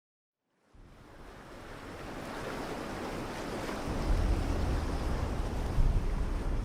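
Sea surf and wind fading in from silence as a steady rushing noise, growing louder, with a low wind rumble on the microphone from about four seconds in.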